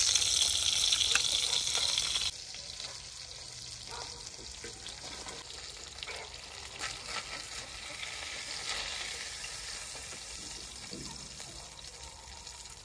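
Fish pieces sizzling in hot oil in a frying pan, with a spatula scraping and clicking against the pan as the pieces are lifted out. The sizzle is louder for about the first two seconds, then settles to a quieter hiss.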